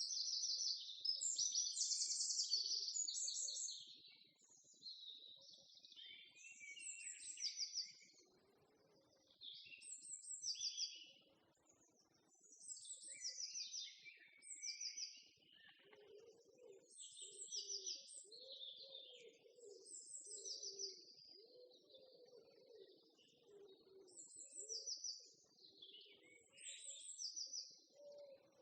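Small birds chirping and singing, short high trilled phrases coming every second or two, loudest in the first few seconds. A fainter, lower, uneven sound runs underneath from about halfway.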